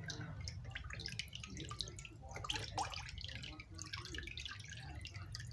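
Water dripping and splashing back into a plastic basin as raw tripe is lifted and squeezed by hand during washing, in many irregular small drips and splashes over a low steady hum.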